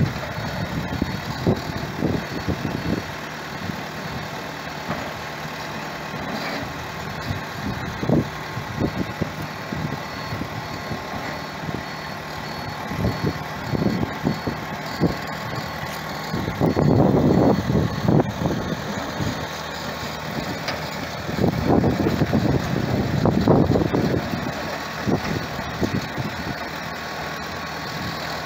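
Diesel telehandler engine running while towing a sailboat on a wheeled cradle, louder in two stretches in the second half.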